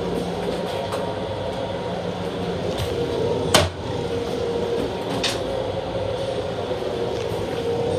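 Steady hum and noise inside a Long Island Rail Road M7 electric railcar, with a sharp knock about three and a half seconds in and a lighter one a couple of seconds later.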